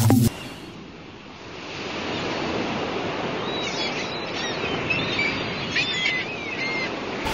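Sea surf washing on a shore: a steady rush that swells up over the first two seconds, with a few short high chirps over it from about halfway.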